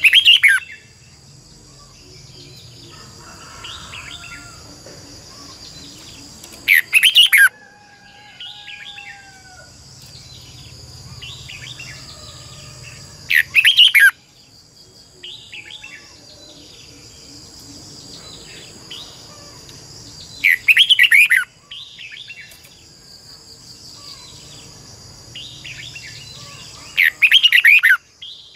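Red-whiskered bulbul singing: a short loud warbled phrase about every seven seconds, five in all, with softer chirps in between. A steady high insect drone runs underneath.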